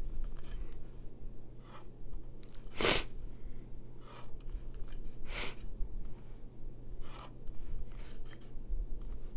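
Sharpie fine-tip permanent marker drawn along a ruler across a playing card, ruling lines: a series of short scratchy strokes, roughly one a second, the loudest about three seconds in, over a faint steady hum.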